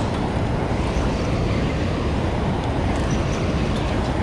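Steady low rumbling rush of water pouring through a dam's open spillway gates and churning in the tailwater.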